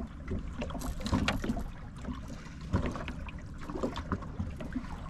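Irregular knocks, clicks and watery noises of handling in a small fishing boat, over a steady low rumble.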